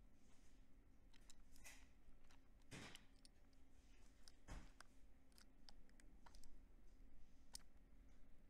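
Faint clicks and scrapes of a snap-off utility knife blade cutting fabric covering, with two short scraping strokes about three seconds and four and a half seconds in.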